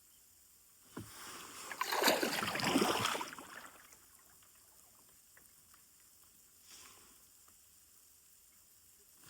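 A kayak paddle stroke: a light knock, then one swishing splash of the blade through calm water about two seconds in. After it, only small drips and ticks.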